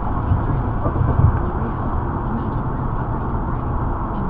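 Steady road and engine noise inside a moving car, picked up by a dashcam microphone.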